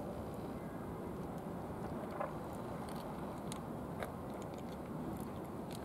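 A cat eating from a dish, with small scattered clicks of chewing over a steady low background rumble.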